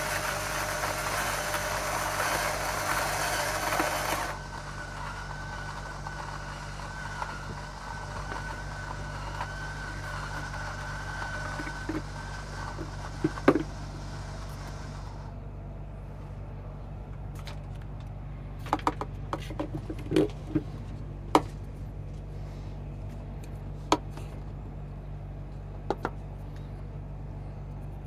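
Two portable battery-powered electric coffee grinders grinding beans together; one cuts out about four seconds in, and the other runs on with a steady thin whine until it stops about halfway through. After that come scattered clicks and knocks as a grinder and its ground-coffee jar are handled, over a low steady hum.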